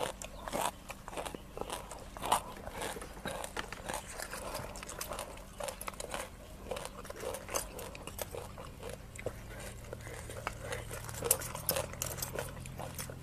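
Close-miked chewing and crunching of raw rice-field crab and papaya salad, with scattered clicks and scrapes of a metal spoon and fork picking through the crabs on the tray.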